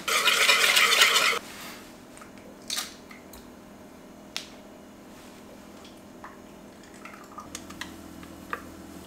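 Dry waffle mix poured from a plastic bag into a bowl, a loud hissing pour for about a second and a half, then scattered light clicks and taps of bowls and utensils while the batter is made and spooned into a waffle iron, with a faint low hum near the end.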